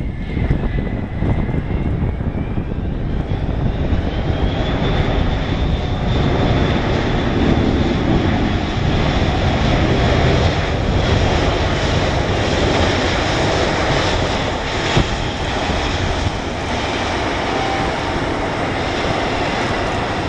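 Boeing E-6B Mercury's four CFM56 turbofan jet engines on the landing rollout: a loud jet rush with a high whine that rises as the engines spool up a few seconds in, then holds and slowly winds back down.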